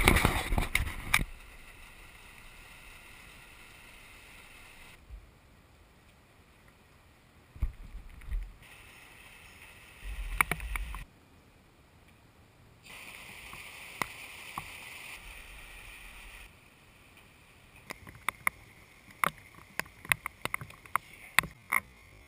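Muffled storm noise recorded through a GoPro's sealed housing, jumping in level at each cut between clips, with low wind rumbles. It opens with a burst of loud crackling and clicks, and near the end comes a scatter of sharp taps, typical of raindrops striking the camera case.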